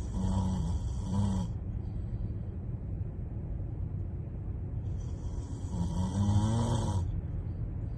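A person snoring: two long snores about five seconds apart, the first already under way at the start and ending about a second and a half in, the second near the end. A steady low rumble runs underneath.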